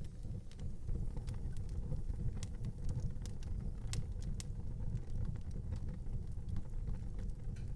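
Wood fire burning in an outdoor fireplace: a steady low rumble of the flames with scattered sharp crackles and pops, several a second at times.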